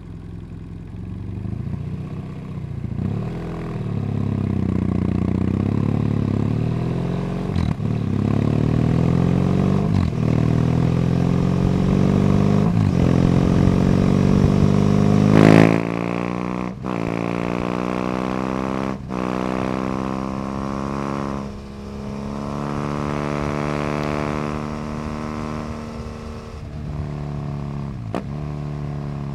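BMW F800GS in-line twin through a Leo Vince slip-on exhaust, the revs climbing and dropping through several gear changes. It is loudest about halfway, then the revs fall through further shifts.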